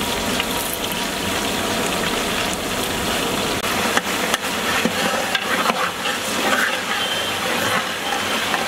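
Large aluminium cooking pot of pulao broth at a boil: a steady bubbling, hissing noise, with a couple of sharp knocks about four seconds in.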